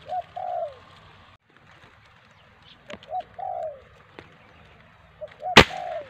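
A dove cooing, a short note followed by a longer falling note, repeated about every three seconds. About five and a half seconds in, a single sharp air rifle shot, the loudest sound.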